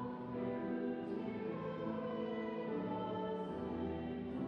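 Slow choral music with long held chords that shift every second or two.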